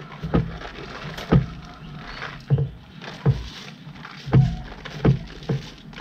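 Handfuls of sticky rice being scooped from a plastic colander and dropped onto banana leaves lining a pot: a series of soft thumps, roughly one a second.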